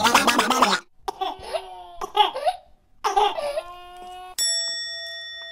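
A short burst of rapid flapping as a white Pomeranian shakes its head, then laughter in two bursts. A bright chime rings out about four seconds in and slowly fades.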